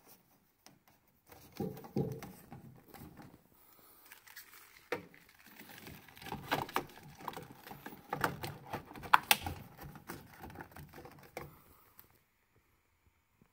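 Handling noise of plastic wiring plugs being fitted onto a gas burner control box: irregular rustling and small clicks, with one sharp click about nine seconds in as a plug snaps home, then quiet near the end.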